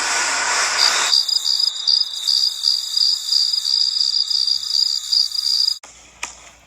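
Firework jets hissing, then a high whistle that pulses about four times a second, which cuts off abruptly near the end.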